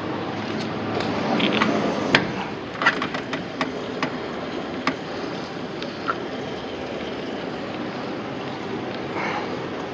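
A handful of sharp clicks and knocks as items in a pickup truck's bed storage box are handled, mostly in the first half, over a steady rushing noise.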